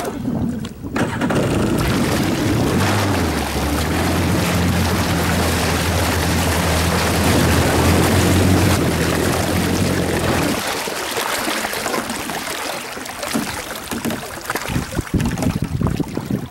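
Jet ski engine running under way for about ten seconds, a steady low hum with wind and water rushing past. About ten seconds in the engine note drops away, leaving wind buffeting and water splashing against the hull.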